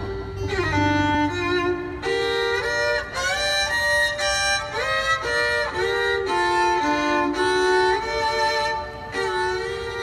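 Live bluegrass band playing an uptempo tune, a fiddle carrying the melody with sliding notes over banjo and other string-band backing.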